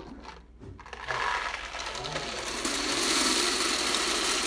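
Skittles pouring from a plastic jar into a candy vending machine's hopper: a continuous dense rattle of small hard candies that starts about a second in and gets louder partway through.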